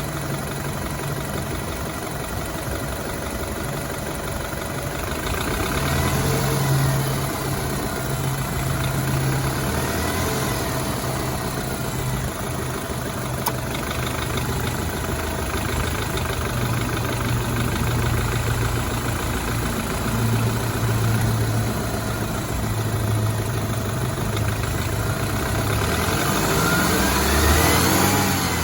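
BMW 328i F30's N26 2.0-litre turbocharged four-cylinder engine idling, revved briefly a couple of times, with a knocking noise and a whine that the owner suspects come from a bad timing chain guide.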